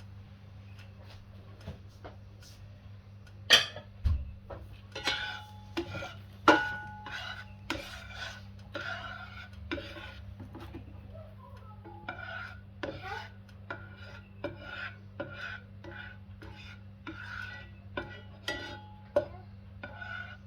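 A metal utensil scraping and clinking against cookware in a run of short strokes, with a few louder ringing knocks about three to seven seconds in.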